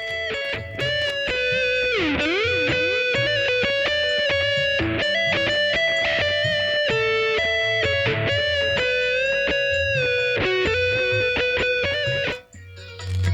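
Electric guitar playing a slow, sustained melody, with deep pitch bends about two seconds in. The music breaks off near the end.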